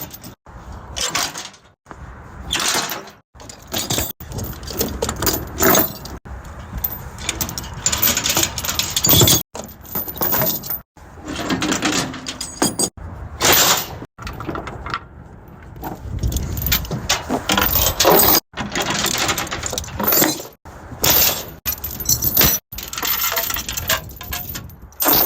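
Irregular metallic clanking and rattling, broken by several abrupt short gaps of silence.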